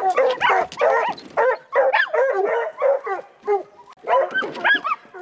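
Treeing walker coonhounds barking excitedly in quick succession, about two to three barks a second, with a short break a little before the end.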